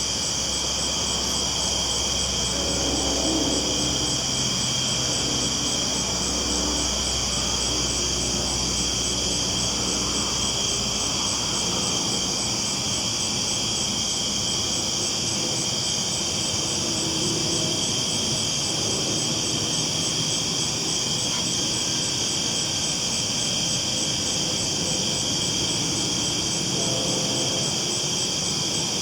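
Train rolling along the tracks at night: a steady low rumble that eases about twelve seconds in, under a constant high chirring of crickets.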